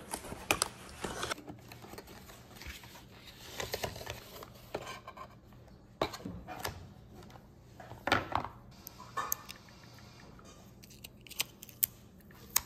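Paper and cardboard packaging of an Apple Watch being opened and handled: an irregular run of soft scrapes, rustles and small clicks as boxes and sleeves are slid, flexed and set down.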